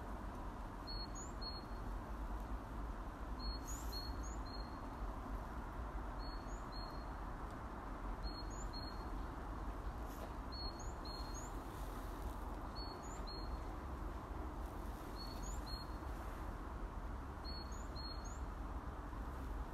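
A small songbird repeating a short, high phrase of two or three notes, one note rising sharply, about every two seconds, over a steady low background rumble.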